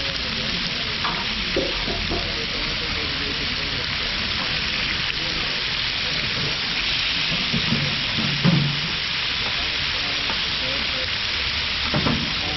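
Chicken breasts sizzling steadily on a large flat-top griddle, with a few brief knocks as metal tongs turn them.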